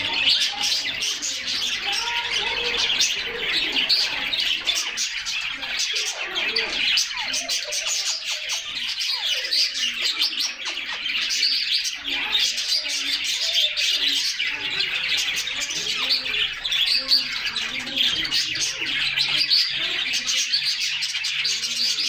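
A group of caged canaries chirping and twittering over one another in a dense, unbroken chorus.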